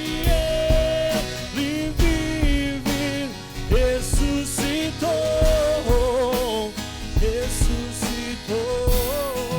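Live worship band music: drums keeping a steady beat about once a second under a held, sliding melody line, with some singing.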